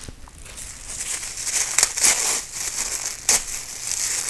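Plastic wrapping crinkling and rustling as it is pulled off a guide scope by hand, irregular, with a couple of sharper crackles.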